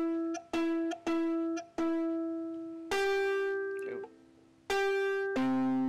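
Ukulele strings plucked one at a time during tuning. The E string is plucked four times, about every half second, as it is brought into tune. Then a slightly higher string rings out twice, and a lower note sounds near the end.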